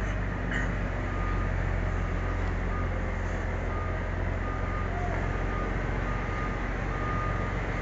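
Steady low rumble of street traffic, with a faint short electronic beep repeating at an even pace, of the kind a vehicle's reversing alarm makes.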